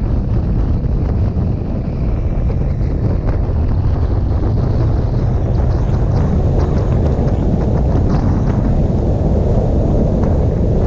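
Wind rushing over the microphone of a camera on a moving motorcycle, with the low rumble of the bike running at road speed beneath it. It gets a little louder about two seconds in.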